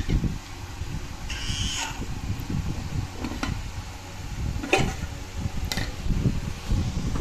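Spoons and steel dishes clinking in a few sharp knocks as a meal of rice is served, over low handling rumble. A short high-pitched cry about a second and a half in.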